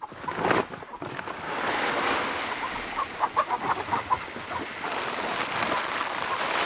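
Backyard chickens clucking, several short clucks together about halfway through, over a steady hiss.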